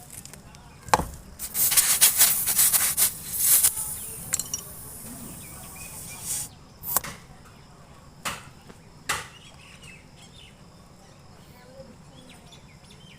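Hand tools being worked into a tubeless tyre puncture: a sharp knock about a second in, then about two seconds of rapid scraping strokes, then several separate sharp clicks and knocks.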